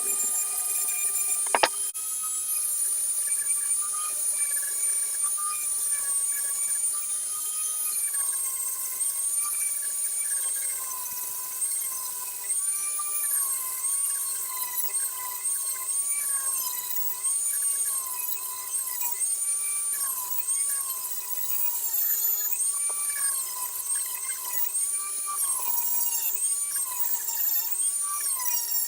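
Small high-speed rotary tool with a sanding bit whining as it sands the hammer head, its pitch dipping and recovering over and over as the bit is pressed into the metal. A short click about a second and a half in.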